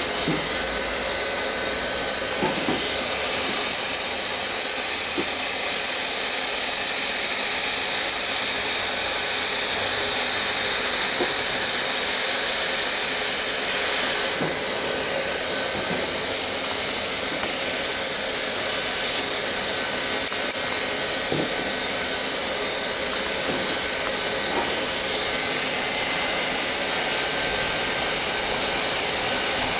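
Plastic welding machine running with a steady hiss, the sound of its hot-air blower, with a few faint knocks now and then.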